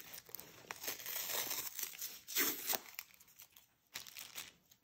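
Adhesive tape being peeled off a rolled diamond painting canvas, with its paper wrapping crinkling. The tearing and crinkling run for about three seconds, loudest near the middle, then thin out to a few faint crackles.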